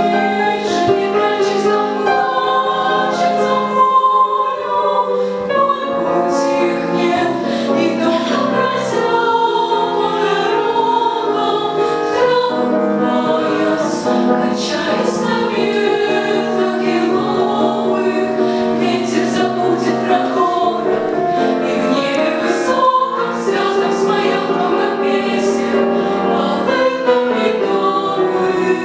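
A girls' vocal ensemble singing a choral song in parts with sustained notes, accompanied by piano.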